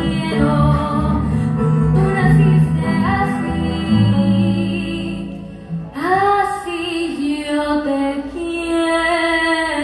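A woman singing a Colombian bambuco live, accompanied by a small string ensemble of guitars and violin. About halfway through, the low accompaniment thins and she carries on with long held notes.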